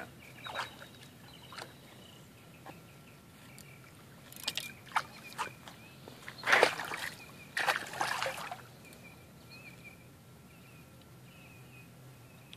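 A hooked tarpon thrashing at the water's surface, sending up a few sudden splashes, the biggest two about six and a half and eight seconds in.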